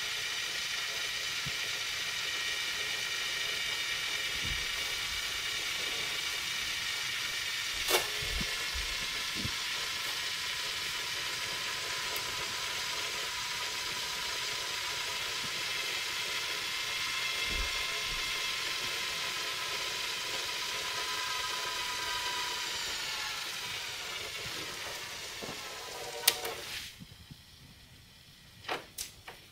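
Sony SLV-D350P DVD/VHS combo's internal mechanism running with a steady whine and hiss, with a sharp click about eight seconds in. Near the end it winds down, the whine falling in pitch over a few seconds until it stops, followed by a few clicks.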